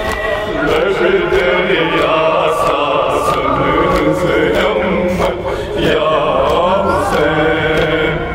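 Men's voices chanting a Kashmiri nauha, a mourning lament for Imam Hussain, several voices together, with short sharp strikes cutting through.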